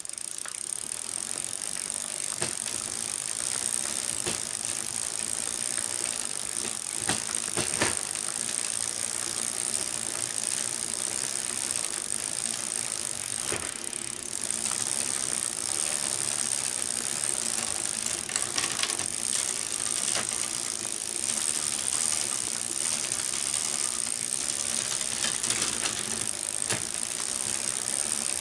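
Bicycle chain drive of a recumbent trike running as the cranks are pedalled: the chain rattles over the triple chainset and the short motor chain, with a steady high whir and now and then a sharp click.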